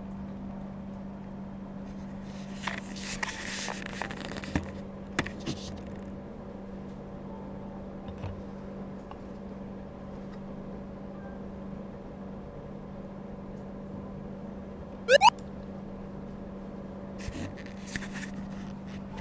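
Steady low room hum with a few light clicks and scrapes in the first few seconds. About fifteen seconds in comes a short, sharply rising whistle-like sound effect, the loudest thing heard.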